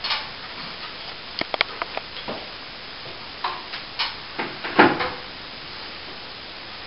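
Hand tools working on plaster: a scatter of short knocks, clicks and scrapes, the loudest knock about five seconds in, over a steady low hiss.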